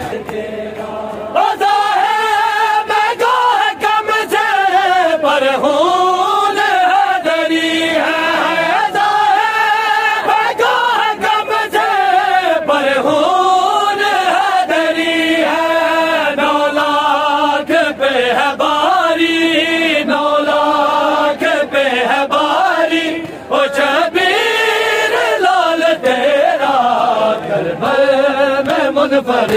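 Men chanting a noha, a Shia mourning lament, together in loud voices that carry long, sliding melodic lines. The singing dips briefly about three quarters of the way through.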